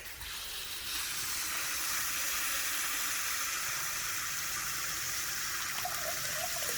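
Small pump-fed backyard pond waterfall running as it is switched on for a test. Water pours steadily down into the little stream, swelling to full flow within about the first second.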